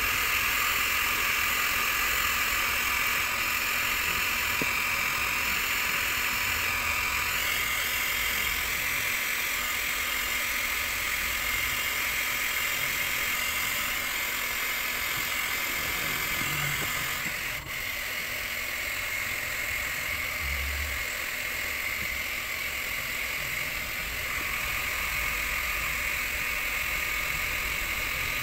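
Hand-held plastic-welding hot-air gun running, a steady blowing hiss with a faint whine, with a brief break about two-thirds of the way through.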